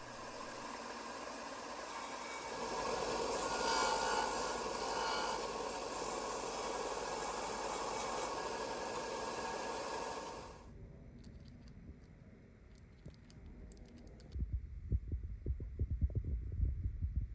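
Deer antler bead blank being sanded square on the ends against a sanding pad: a steady abrasive hiss that stops abruptly about ten seconds in. A few faint clicks follow, then soft, uneven low knocks and bumps near the end.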